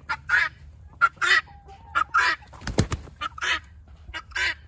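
Loose chickens calling in short, repeated squawks, roughly two a second, with a brief dull thump about halfway through.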